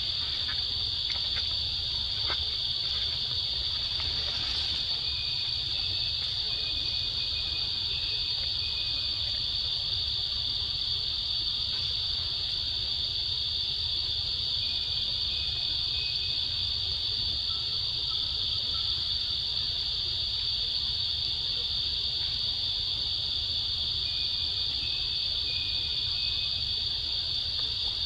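Chorus of forest insects: a steady, high-pitched drone without a break, over a low rumble.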